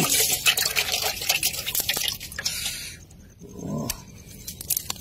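A fish thrashing in shallow water in a metal basin, a dense patter of splashes for about two and a half seconds that then dies away. A few light clicks follow near the end.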